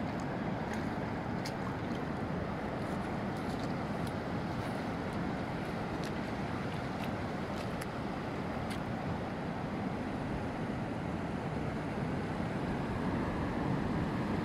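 Steady rush of surf breaking on the beach, mixed with wind noise on the microphone, with a few faint ticks.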